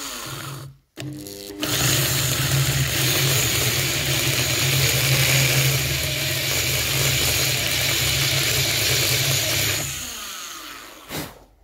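Electric drill with a 10 mm bit boring into an aluminium bicycle crank arm, counterboring the pedal-thread hole so a bolt head sits flush. The drill runs briefly at the start, then runs steadily while cutting from about a second and a half in, and winds down near the end, followed by a single click.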